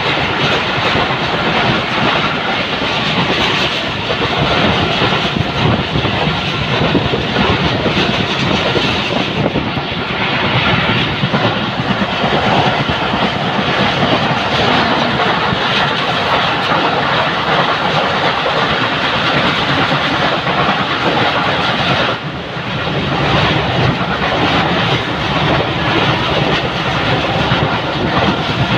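Passenger train running along the track, heard from an open coach door: steady, loud rumble and rattle of the coach wheels on the rails. It dips briefly in loudness about three-quarters of the way through.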